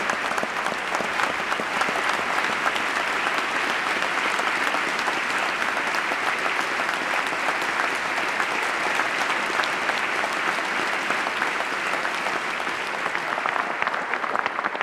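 Steady applause from a large audience, many people clapping at once.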